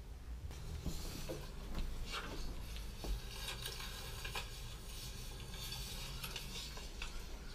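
Light rustling and clattering handling noise with many small scattered clicks, starting about half a second in.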